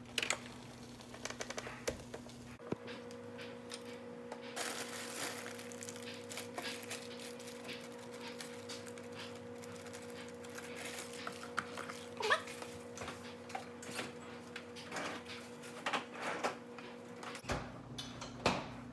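Scattered light clicks, taps and knocks of kitchen handling over a steady low hum.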